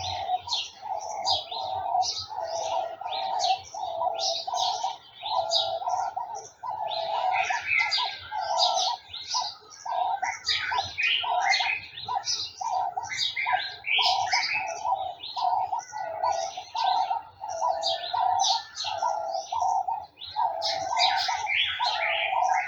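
Garden birds chirping and twittering in a busy chorus of short high notes. Under them, a lower note repeats steadily about twice a second throughout.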